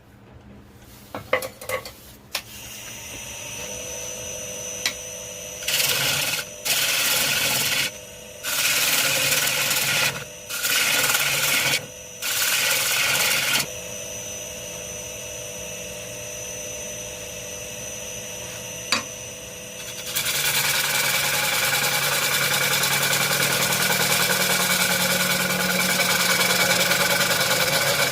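Power tool running on wood: a few clicks, then a steady motor hum broken by six loud bursts as it works the wood, then louder continuous working from about two-thirds of the way in.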